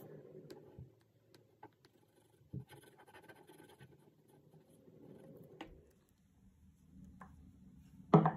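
Felt-tip marker scratching faintly on folded paper while drawing small marks, with scattered light clicks and taps. About eight seconds in, a single short, much louder knock.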